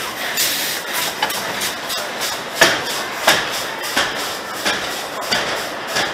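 Wooden roller coaster train rolling slowly through its station, with a sharp clack about every two-thirds of a second as it moves along the track, over a steady rattling hiss.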